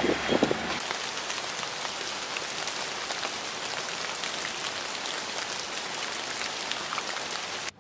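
Steady rain patter, a dense run of small drop hits on the auto-rickshaw's canvas canopy, cutting off suddenly near the end.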